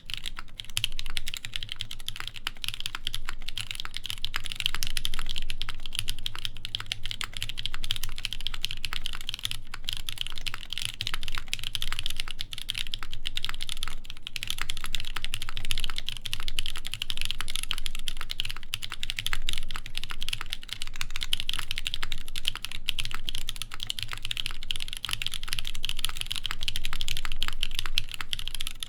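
Continuous fast typing on a Keycult 2/65 mechanical keyboard with lubed NK Cream linear switches, a brass plate and GMK Noire keycaps. The typing starts suddenly and goes on as a dense, unbroken run of keystrokes.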